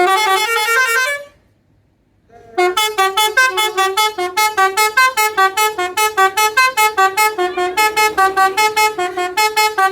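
Bus basuri telolet horn: one long blast of about a second, then after a short pause a rapid staccato tune of many short notes, about five a second, stepping between a few pitches.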